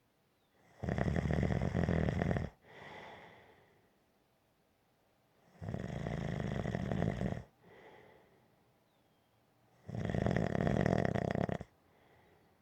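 Snoring: three long, rattling snores about four seconds apart, each followed by a softer, shorter breath.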